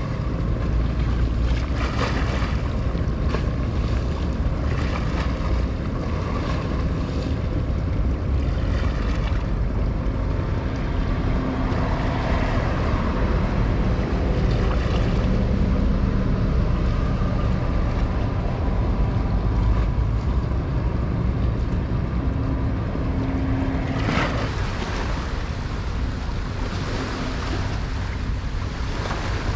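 Wind rushing on the microphone over the wash of water, with the low steady hum of ship and tug engines under it. The sound changes abruptly about 24 seconds in.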